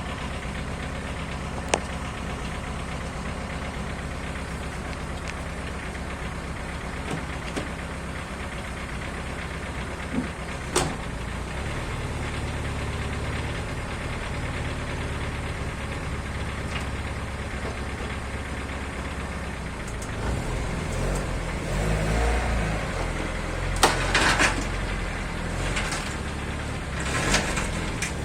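A car engine idling steadily, with a few sharp clicks and knocks. About twenty seconds in, the low engine sound turns uneven.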